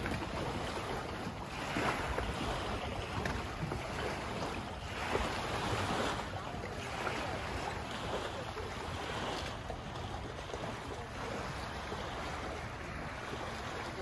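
Wind buffeting the microphone and water rushing past a small boat under way, an even noisy wash that swells louder every few seconds.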